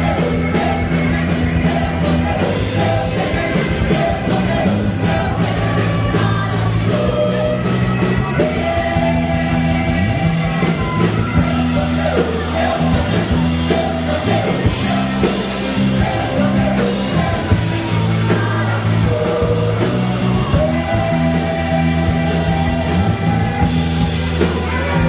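A Christian worship band playing a song from a medley, with voices singing long held notes over bass and drums.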